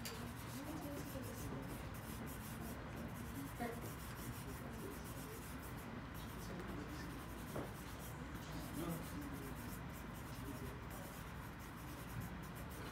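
Charcoal stick scratching and rubbing across paper in repeated shading strokes, faint.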